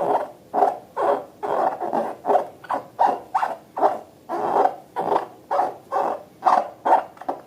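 Slime being squeezed and worked by hand, a run of wet squelches about two to three a second.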